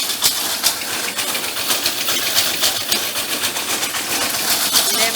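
Septic tank vacuum truck running steadily as it sucks out the tank, with scattered clicks and knocks over the steady noise.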